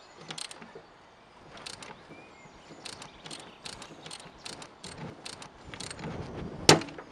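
Caliper wind-back tool clicking as it is turned by a ratchet handle, screwing the rear brake caliper piston back into its bore. The clicks come sparsely at first, then about three a second, with one louder sharp click near the end.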